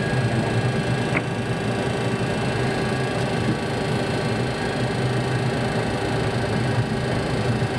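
Steady cockpit noise of an MD-80 airliner taxiing after landing: its rear-mounted Pratt & Whitney JT8D turbofans running at idle, heard as an even hum inside the cockpit.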